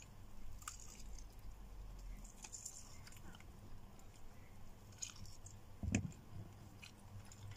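Mouth sounds of someone eating chicken by hand: quiet chewing with small wet clicks and lip smacks, and one louder dull knock about six seconds in.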